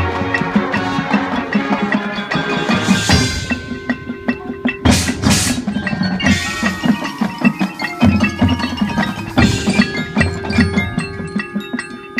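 Marching band playing, with quick struck notes from mallet percussion over sustained low brass and drums, and several cymbal crashes, two close together about five seconds in.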